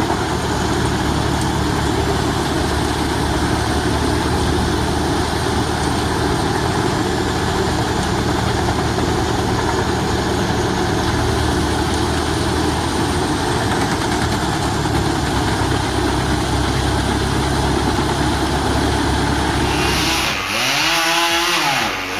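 A heavy drum shredding machine, with a drum about five feet wide, running flat out, its engine running steadily under a dense grinding noise. About twenty seconds in it gives way to a chainsaw revving up and down.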